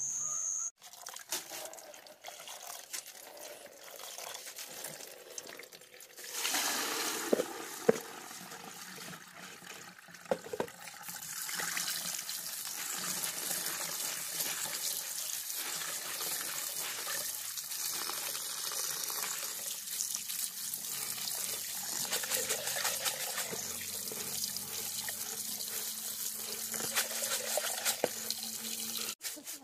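A stream of running water pouring onto soaked rice in a woven bamboo sieve while hands rub the rice to rinse it, giving a steady splashing hiss. The hiss starts about six seconds in and is louder and fuller from about eleven seconds on, with a few sharp knocks between about seven and ten seconds.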